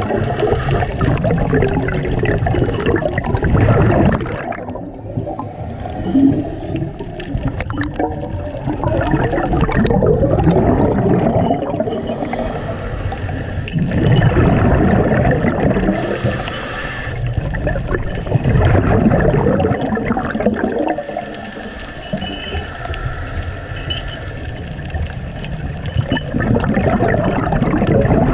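Scuba diver breathing through a regulator underwater: a hiss on each inhalation, then a loud bubbling rumble as each exhaled breath escapes. The cycle repeats every few seconds.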